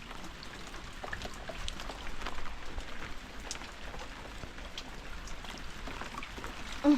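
Rain falling, with many separate drops pattering on surfaces over a steady hiss. A brief voice sound comes right at the end.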